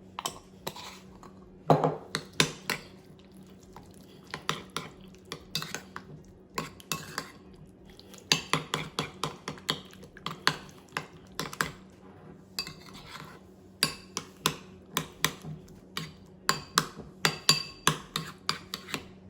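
Spoon clinking and scraping against a bowl while stirring a thick, chunky feta and yogurt sauce, in quick irregular runs of taps.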